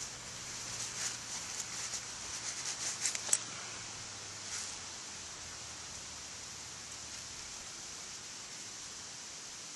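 Dry tinder bundle and twigs rustling and crackling as they are handled by hand, a quick run of small crackles over the first few seconds with the sharpest about three seconds in, one more shortly after, then only a faint steady hiss.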